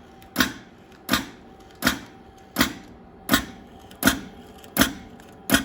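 Vibemac belt loop and ribbon cutter, driven by compressed air, chopping tape into lengths. It makes a sharp cutting stroke about every three quarters of a second, eight in all, over a faint steady hum.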